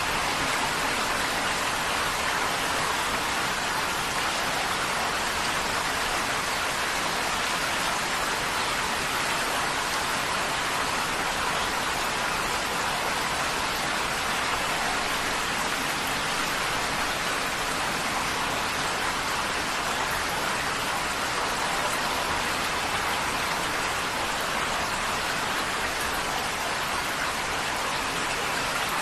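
Heavy rain falling steadily on a tin roof, an even, unbroken hiss of drops.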